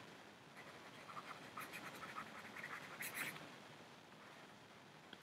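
Faint scratching strokes of a stylus handwriting a word on a tablet, a quick run of short strokes that stops a little after three seconds in.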